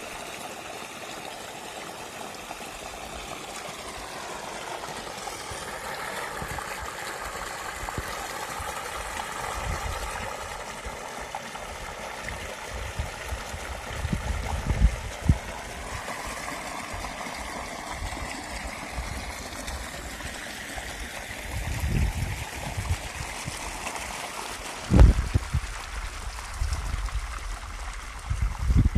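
Steady rush of flowing water, with a few short low thumps in the second half.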